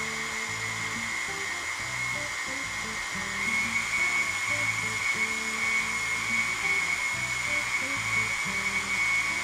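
Electric countertop blender running steadily, blending a thick batter of corn flour, eggs and milk, its motor whine getting louder about three and a half seconds in. Soft background music plays underneath.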